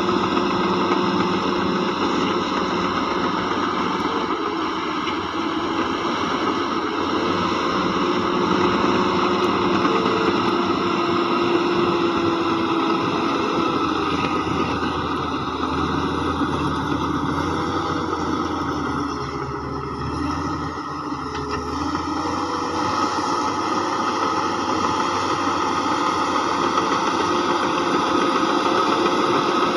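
Heavy diesel engines of earthmoving machinery running steadily, the engine note shifting and briefly dipping in loudness around the middle.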